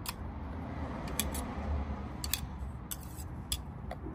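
A knife blade scraping and clicking against a stainless-steel garlic rocker press while crushed garlic is scraped off it: a few sharp metallic clicks at uneven intervals over a low steady hum.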